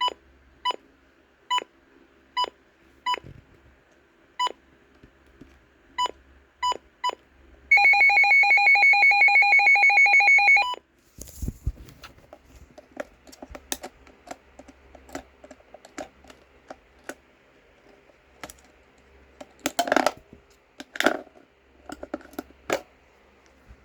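Midland WR-100 weather radio: a run of short, irregularly spaced beeps, then about three seconds of its loud, rapidly pulsing alert siren, which cuts off suddenly. Clicks and handling knocks follow.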